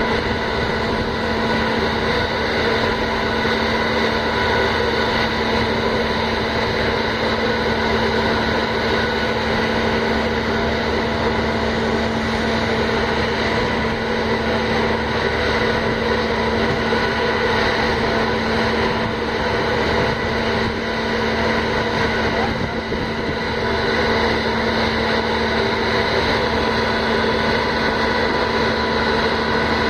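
Steady mechanical hum from a berthed ferry's machinery: an even drone with several steady higher tones over it, running without change.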